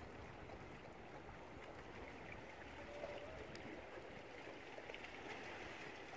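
Faint, steady wash and trickle of water around a canoe on calm sea.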